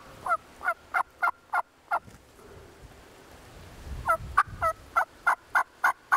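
Turkey calling: two runs of short, evenly spaced calls, about three a second, the second run starting about four seconds in and longer.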